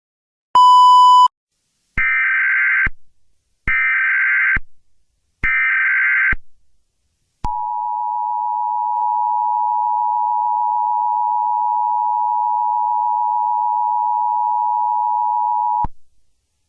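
Emergency Alert System tones: a short beep, then three bursts of the screeching digital header data about a second apart. Then the steady two-tone attention signal is held for about eight seconds and cuts off abruptly.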